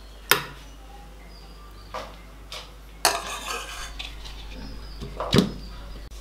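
Metal spoon knocking against a stainless steel mixer-grinder jar and scraping the pan as cooked tomato is spooned in: about five sharp clinks with a short scrape after one of them, the loudest near the end.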